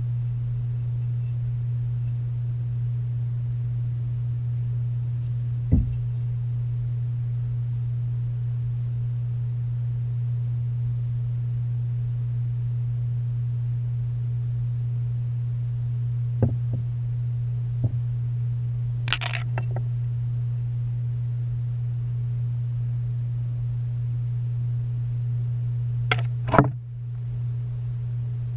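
Steady low hum of a submersible aquarium filter pump, heard underwater. A few sharp knocks and taps break in, the loudest near the end.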